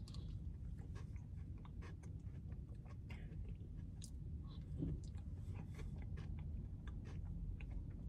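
Faint chewing and wet mouth sounds of a man eating soft frozen custard with sticky marshmallow fluff from a plastic spoon, with scattered small clicks and smacks over a steady low hum.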